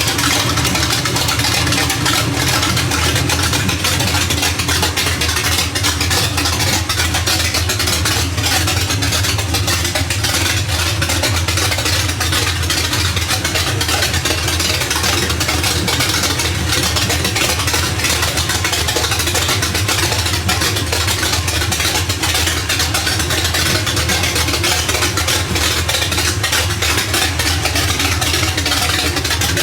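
1979 Chevrolet C10 pickup's engine idling steadily and loud through open headers.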